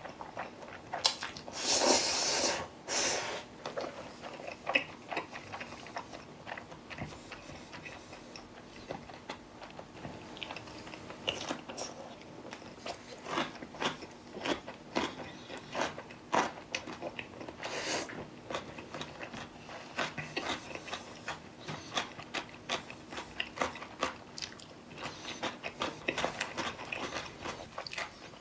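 Close-miked eating: chewing and biting of black bean jjajang ramyeon, fried egg and whole pickled radish, with crunchy bites and wet mouth clicks in an uneven stream. A louder, longer burst comes about two seconds in.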